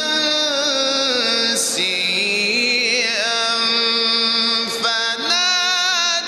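A man's voice reciting the Quran in the melodic, ornamented mujawwad style. He holds long wavering notes and glides between pitches, with a brief break about five seconds in before a new phrase.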